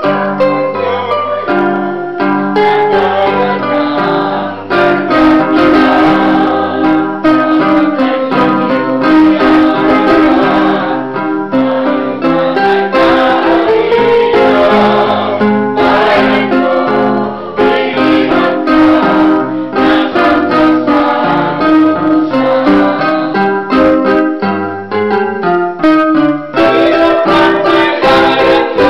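A small group of singers, mostly women, singing a song together, accompanied by an electronic keyboard with a piano sound.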